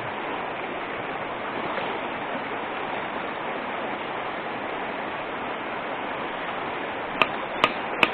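Mountain stream rushing steadily over stones. About seven seconds in, a hammer starts striking a rock, three sharp blows about 0.4 s apart, trying to split the stone open.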